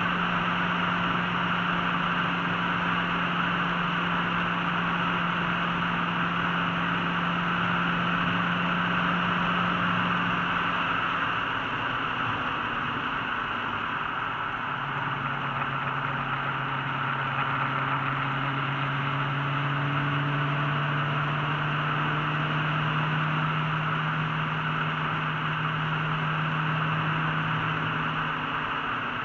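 Ford GT's engine droning steadily at cruise under road and wind noise, heard inside the cabin. The engine's pitch drops about a third of the way through, then slowly climbs again.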